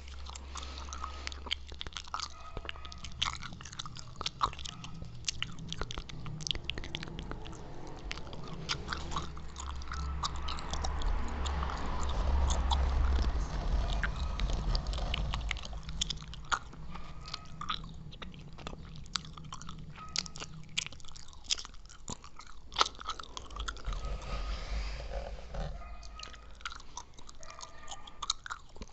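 Close-miked mouth sounds of someone chewing gum: a steady stream of wet clicks and smacks. The sound gets louder for a few seconds about halfway through.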